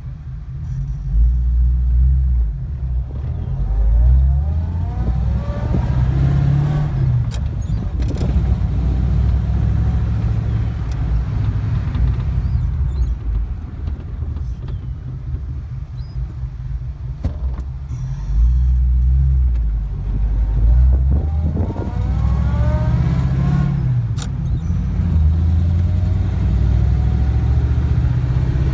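A 1934 Ford on the move, heard from inside the cabin: the engine runs with a steady low rumble. Twice it speeds up, with a whine that rises in pitch, and now and then there is a sharp rattle or knock.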